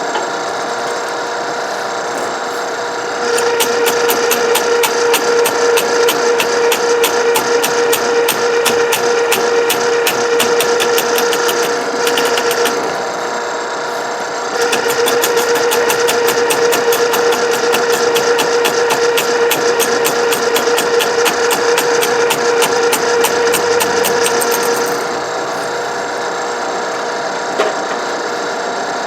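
Ridgid K-50 sectional drain machine running, with its spinning cable driven into an ice-blocked drain in two long stretches, about 3 to 13 seconds and again from about 15 to 25 seconds. Each stretch is louder, with a steady hum and rapid even ticking. The ice is too hard for the sectional cable to cut through.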